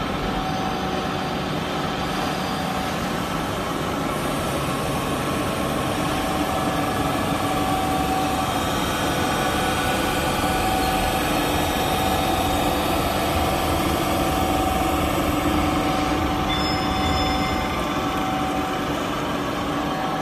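Gantry-type CNC grinding machine running, its spindle-mounted grinding wheel working over the face of a machine-tool ram: a steady machine hum with several steady whining tones.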